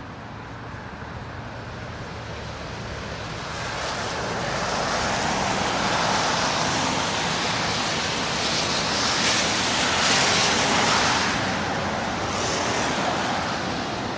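Road traffic passing on slushy, snow-covered roads: a tyre hiss that swells over several seconds, is loudest about ten seconds in, then eases, with a smaller rise near the end.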